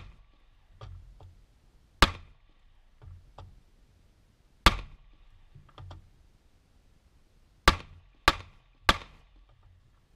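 Gunshots hitting the glass panes of a wooden door backed by a bullet-resistant blind: single sharp cracks about two to three seconds apart, then three quick shots about half a second apart near the end. Fainter clicks and knocks fall between the shots.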